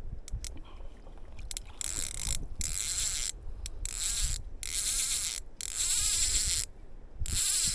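Fly reel ratchet clicking in a series of short spurts as a hooked trout is reeled in, stopping and starting every second or so, over a low rumble of wind and river.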